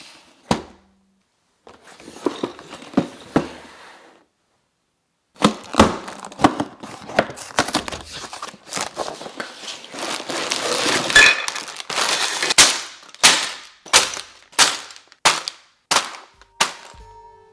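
Cardboard LEGO set box being torn open and its sealed plastic bags of bricks handled and set down on a table: crinkling and tearing, with a string of sharp knocks and rattles as the bags land, spaced under a second apart near the end.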